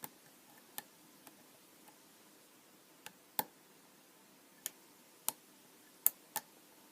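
Small sharp clicks of a hook pick working the pins inside a Zone 5-pin padlock during single-pin picking: about seven separate clicks at uneven intervals, the loudest two about three and a half and six seconds in.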